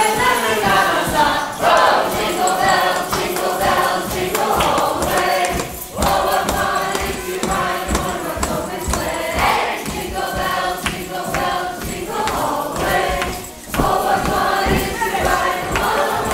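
A roomful of people singing a Christmas carol together, with two brief pauses between lines.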